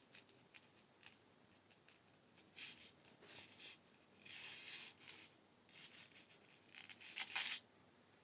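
Faint, short scratching and clicking sounds of small-scale handwork, half a dozen in a row, the loudest pair near the end.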